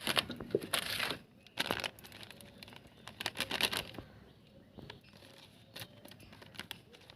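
Kitchen handling sounds while spices are being added to boiled eggs: several short bouts of rustling and crinkling, with scattered small clicks.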